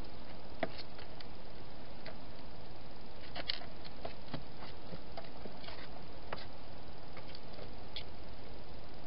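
Wild hedgehog eating at the bowls in a plastic feeding box: irregular small clicks and crunches scattered over a steady hiss.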